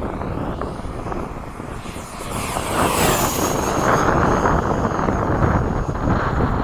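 Freewing 80 mm electric ducted fan F-5 model jet making a fast pass. Its high fan whine swells about two and a half seconds in, then drops in pitch as it goes by, over wind buffeting the microphone.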